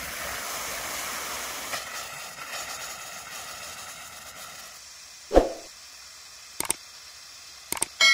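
Compressed air blowing the last water out of an open ball valve on a garden watering pipe: a steady hissing spray of air and water that slowly weakens as the line empties. A single loud thump comes about five seconds in, and a few sharp clicks follow near the end.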